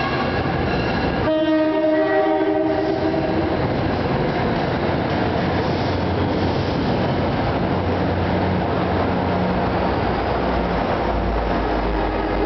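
Horn on a New Jersey Transit Comet III cab car sounds one blast about a second in, lasting about two seconds. The push-pull commuter train then rolls past with steady wheel-on-rail noise. A deeper diesel rumble comes in near the end, from the F40PH-2CAT locomotive pushing at the rear.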